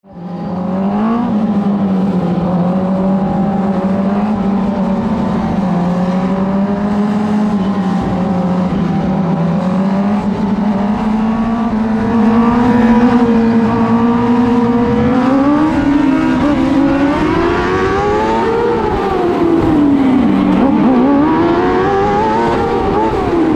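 Onboard sound of a TQ midget race car's engine running on track, fading in at the start. It holds a fairly steady pitch for about the first half, then rises and falls in pitch several times as the throttle is worked.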